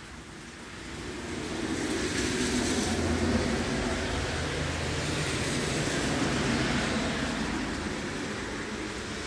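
Heavy rain falling steadily. Under it, a low rumble swells over the first few seconds and then slowly fades away.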